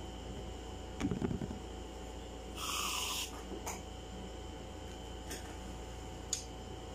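A short hiss of whipped cream sprayed from an aerosol can, lasting under a second, midway through. Soft handling knocks come just before it and a couple of faint clicks follow.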